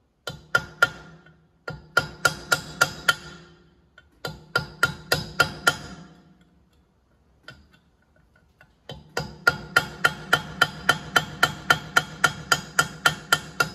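Hammer striking a steel punch on the gland end of a hydraulic cylinder: quick runs of metal-on-metal blows, about four a second, each ringing briefly. There are four runs, the longest in the second half.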